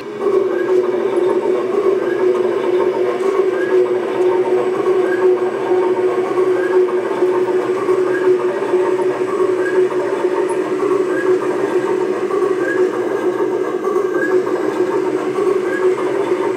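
1/8 scale RC hydraulic excavator's metal crawler tracks and drive running steadily, with a constant mechanical hum. A short squeak repeats about every second and a half.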